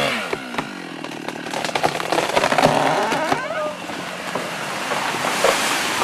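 Chainsaw running as it cuts through a tree trunk, with many sharp cracks. Near the end comes a burst of rushing noise as the tree comes down.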